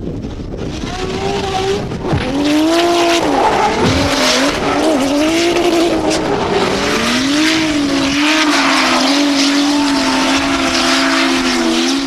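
Drift cars sliding at high revs with tyres squealing. The engine note rises and falls with the throttle, dipping sharply twice in the first few seconds, then holds steady.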